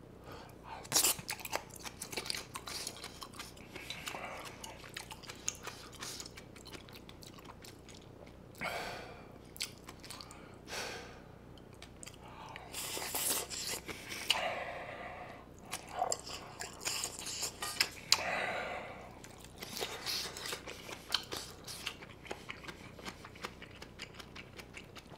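Close-miked chewing and biting of bulgogi and kimchi fried with rice, wet mouth sounds in irregular bursts, with scattered sharp clicks.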